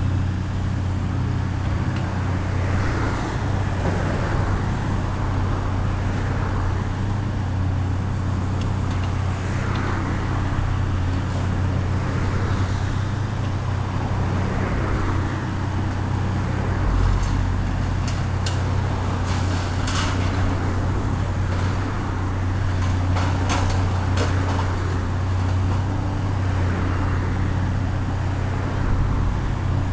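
Heavy demolition machine's diesel engine running steadily with a low drone that swells every few seconds. Past the middle comes a cluster of sharp cracks and clatter from demolition debris.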